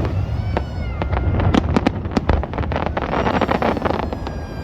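A rapid, irregular series of sharp bangs and cracks over a steady low rumble, with high whistling tones that dip slightly and then hold level, once near the start and again around the middle.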